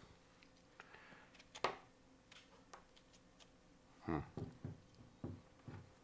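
Swiss Army Knife blade held in a wire peeler adapter cutting slices from produce: a few soft, scattered scrapes and light clicks, with a short cluster of slightly louder knocks about four seconds in.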